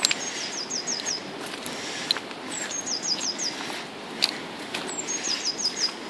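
A small songbird singing a short, high phrase of four or five quick notes, repeated three times about two and a half seconds apart, over a steady rushing background.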